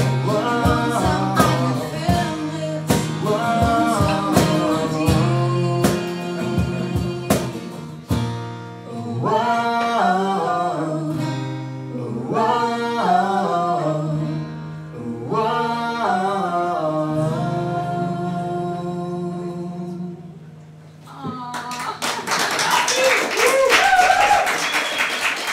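Live acoustic song: an acoustic guitar strummed under singing voices, closing on a last held chord about twenty seconds in. The audience then breaks into clapping with a few shouts.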